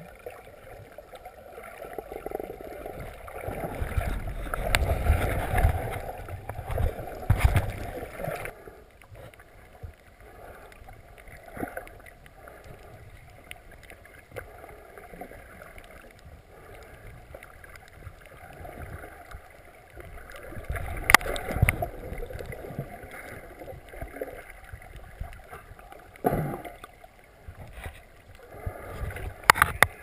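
Muffled water sloshing and gurgling around a GoPro camera's waterproof housing underwater. It swells a few times and has a few sharp knocks against the case.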